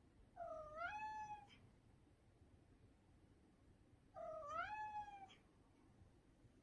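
Domestic cat meowing twice, about four seconds apart. Each meow lasts about a second and dips, then rises in pitch.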